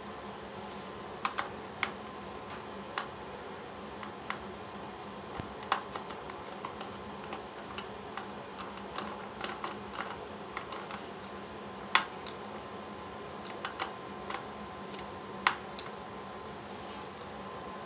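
Irregular small clicks and taps of a screwdriver turning and seating on the screws of a laptop's plastic underside, with a few sharper clicks now and then.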